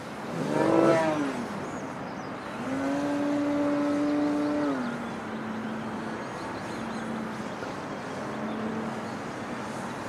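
Radio-controlled model airplane's motor and propeller in flight. The pitch rises and falls once in the first second or so, then holds a steady hum for about two seconds before dropping to a lower, quieter note.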